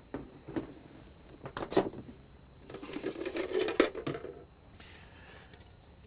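Handling noise from hand tools and plastic dryer-vent parts: a few sharp clicks and light clatter, then a stretch of rustling and scraping with more clicks from about three to four and a half seconds in.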